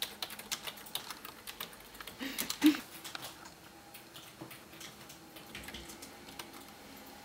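Computer keyboard being typed on: irregular key clicks in quick runs, with one louder knock about two and a half seconds in.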